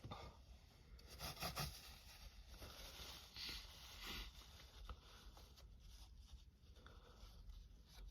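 Near silence with faint rustling and scraping, and a few short soft hisses about a second in and again around three and a half and four seconds in.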